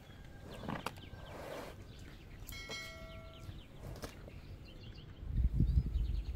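A small bell rings once about halfway through, its several overtones hanging for about a second before fading. Faint chirps follow, then low buffeting thumps near the end.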